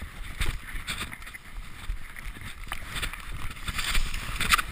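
Mountain bike riding down a dirt trail strewn with dead leaves: tyres rolling over dirt and leaves, and the bike rattling and knocking over bumps, loudest near the end.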